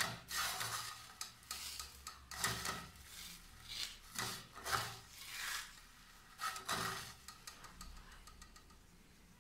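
Crisp roasted vermicelli rustling and crunching as a gloved hand scoops and scrapes it out of a nonstick frying pan, in a string of short rough strokes that die away over the last couple of seconds.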